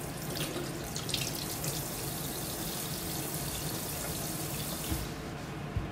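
Kitchen tap running into a sink as raw chicken pieces are rinsed by hand under the stream; the water is turned off about five seconds in.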